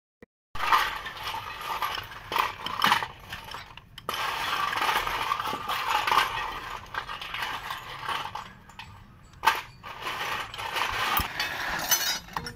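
Metal spanner working the mounting bolts of a truck diesel engine's starter motor: irregular clinking, scraping and ratcheting of steel on steel, starting about half a second in, with a few sharper clinks.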